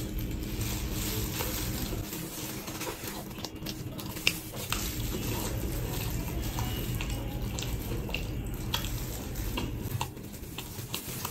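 Close-miked wet chewing and lip-smacking of a man eating a bread wrap, with scattered small clicks and soft plastic-glove crinkles.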